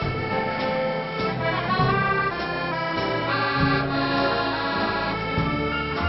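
Dance band playing an instrumental passage, a piano accordion carrying the melody in sustained notes over guitar and rhythm accompaniment.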